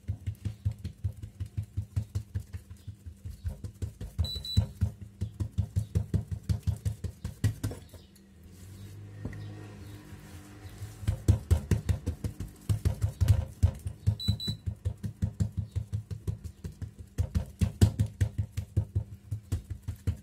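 Oiled hands rapidly patting and slapping a sheet of mlawi dough against the countertop to spread it thin, about three dull pats a second. The patting pauses for about three seconds midway, then resumes.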